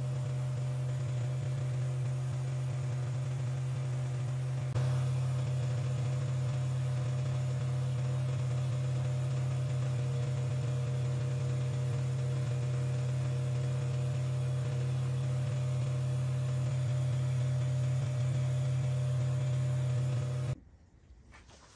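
Metal lathe running with a steady low electric-motor hum while a carbide tool takes a pass along a spinning 12L14 steel test bar. The sound steps up slightly about five seconds in and cuts off suddenly near the end.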